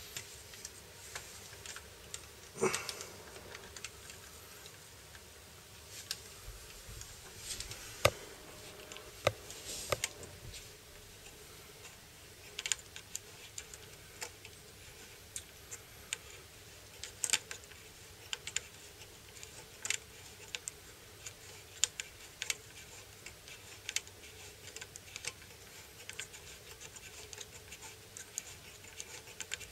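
Irregular light clicks and taps as small metal parts of a model locomotive's mechanism are handled during repair, every second or so.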